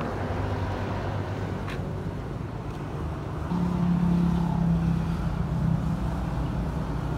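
Engine and road noise of a moving car, heard from inside; the engine hum grows louder and higher about three and a half seconds in as it picks up speed.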